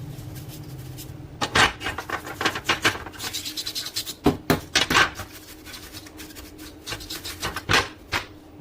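A brush scrubbing a laser printer part: quick, uneven rubbing strokes starting about a second and a half in, a few of them much louder, stopping shortly before the end.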